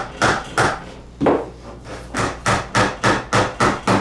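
Claw hammer tapping a plastic door-bottom seal up onto the bottom edge of a steel door: a series of sharp strikes, a few spaced ones in the first two seconds, then a steady run of about three a second.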